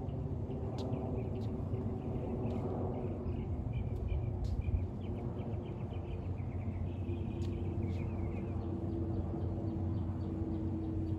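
Outdoor background: a steady low rumble with a faint hum, small birds chirping in quick runs through the middle, and a few faint sharp knocks.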